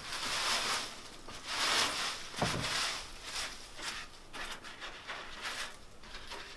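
Dried nettles rustling and crackling as they slide out of a wooden drying tray onto a mesh screen, with a single wooden knock about two and a half seconds in. Then quick, short rustles as gloved hands pull and spread the dry leaves over the screen.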